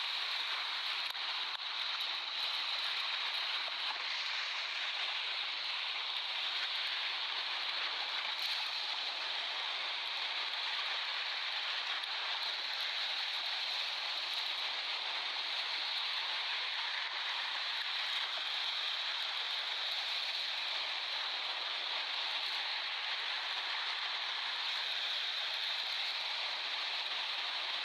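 Ocean surf: a steady wash of breaking waves with no distinct single wave surges.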